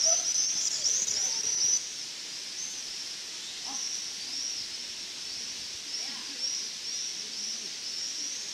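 Cicadas singing in rhythmic, high rasping pulses, about two a second, louder for the first two seconds and then softer.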